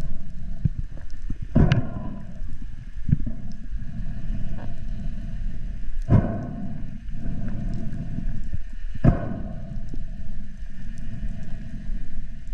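Steady low underwater rumble of water moving against a diver's camera housing, broken by three sharp knocks spread through it.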